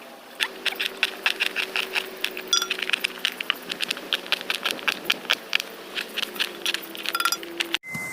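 Knife chopping onions on a cutting board: a quick run of light, sharp taps, about four to five a second, that breaks off abruptly near the end.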